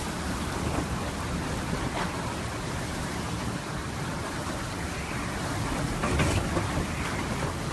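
Hurricane wind and rain: a steady, dense rush of noise with heavy low rumbling, as the wind buffets the microphone.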